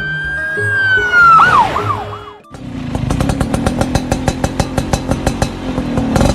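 A police car siren wails in one long rise that sinks away with a few wobbles. About two and a half seconds in, a motorcycle engine takes over, running with a fast, even putter.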